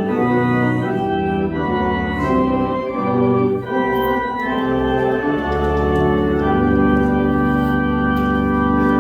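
Organ playing a hymn in sustained chords, ending on a long held final chord over the last few seconds.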